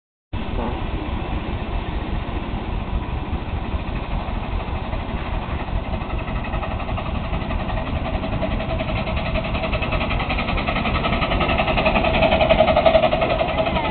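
Ride-on miniature railway locomotive working up a steep grade, its rapid exhaust beat growing louder as it approaches and loudest near the end, over a steady low rumble.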